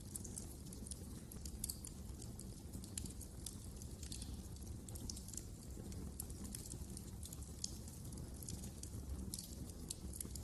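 Wood fire crackling in a fireplace: irregular small pops and snaps over a steady low rumble.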